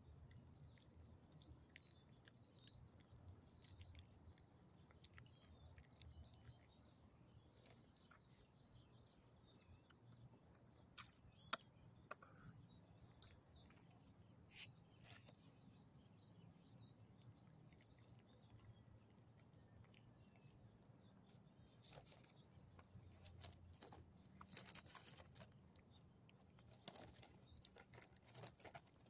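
Near silence, broken by faint scattered clicks and smacks of a small dog chewing and licking small pieces of chicken, with a few louder clicks clustered near the middle and near the end.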